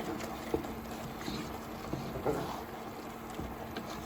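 A spoon stirring thick risotto in a pan, with a few light knocks of the spoon against the pan over a steady low cooking noise.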